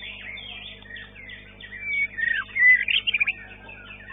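White-rumped shama (murai batu) singing in a contest cage: steady chirping and sweeping whistles, with a loud run of falling whistles and rapid notes about halfway through.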